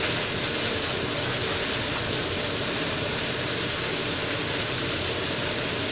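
Beef burger patties frying in a pan, giving a steady sizzling hiss.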